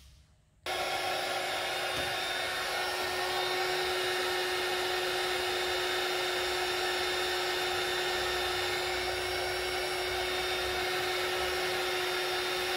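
Hair dryer switched on about a second in and running steadily, a constant rush of air with a steady hum, blowing hot air to heat a seized screw.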